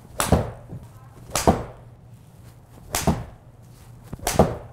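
Four golf shots with an iron in an indoor hitting bay, each a sharp crack of clubface on ball followed closely by a second knock as the ball hits the simulator screen, spaced about a second and a half apart.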